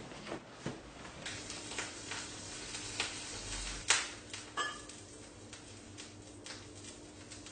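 Kitchen clatter at a gas stove: pots and utensils being handled, with scattered sharp knocks and clicks, the loudest about four seconds in. A faint steady hum comes in about three seconds in.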